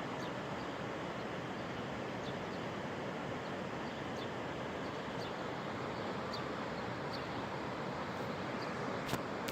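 Steady rush of flash-flood water running down a wadi, with faint, short, high bird chirps now and then. There is a sharp click near the end.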